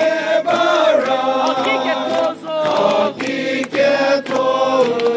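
A group of people singing a song together, in a chorus of voices that hold and step between notes.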